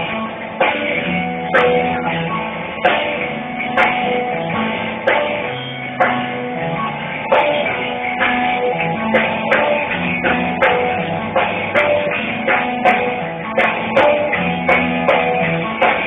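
Rock band playing live through a PA, electric guitar over bass and a steady drum beat, picked up by a phone's microphone.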